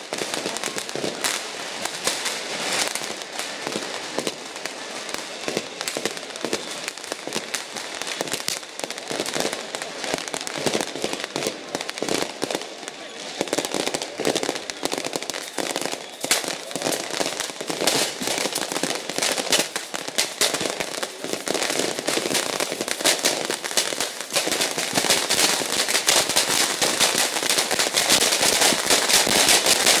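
Firecrackers bursting in a rapid, continuous crackle of bangs, growing louder toward the end.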